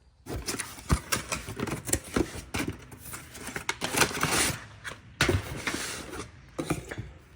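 Crinkling and clattering of packaging and parts being handled as a mower maintenance kit is unpacked: a run of irregular clicks, rustles and light knocks.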